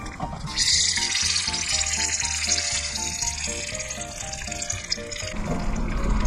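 Battered tempura frying in a small pan of hot oil: a loud sizzle starts about half a second in, as a piece goes into the oil, and dies down near the end. Background music with a simple stepping melody plays underneath.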